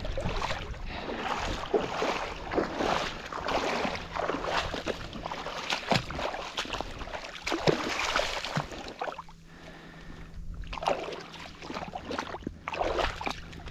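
Water splashing in irregular bursts as a hooked shark thrashes in ankle-deep water on a flat, with a short lull near the end.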